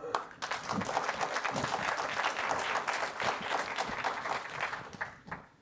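Audience applauding: many people clapping together, starting just after the talk ends and dying away about five seconds in.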